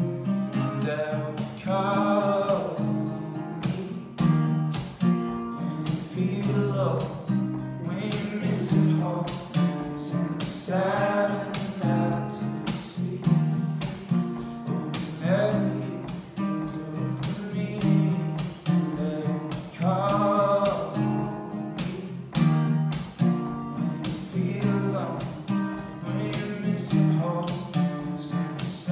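A man singing a song while strumming an acoustic guitar in a steady rhythm, played live.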